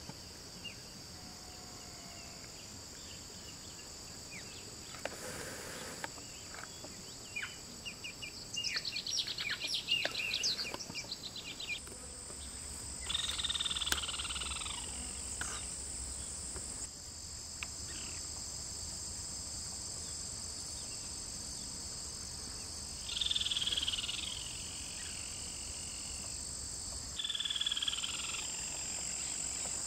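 Steady high-pitched insect chorus with bird calls over it: a quick run of high notes about nine seconds in, then several short calls that fall in pitch, about 13, 23 and 28 seconds in.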